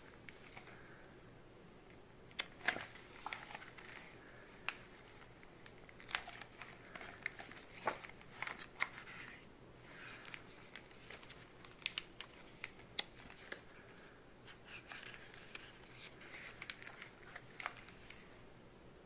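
Clear plastic page sleeves crinkling and crackling as they are handled and turned, with irregular bunches of sharp clicks starting a couple of seconds in.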